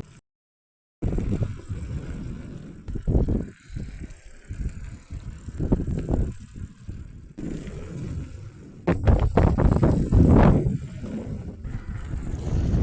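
River water rushing, heard as an irregular noisy rumble that surges and eases, loudest about three-quarters of the way through. The audio cuts out completely for about a second near the start.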